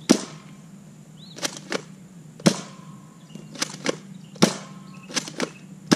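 Nerf blaster being fired repeatedly: about four sharp shots, roughly two seconds apart, with two lighter clacks between each shot and the next.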